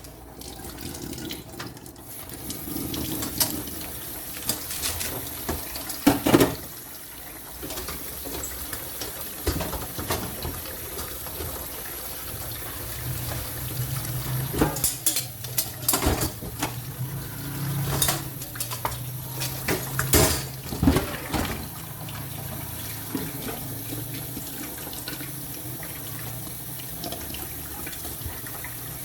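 Tap water running into a kitchen sink, with several sharp clinks and knocks of kitchenware scattered through it.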